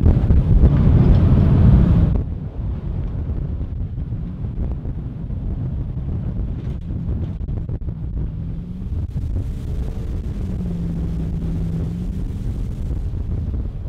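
Jet boat running on a river, with wind buffeting the microphone. About two seconds in it drops suddenly to a quieter steady rumble, in which a faint engine tone rises and falls a couple of times.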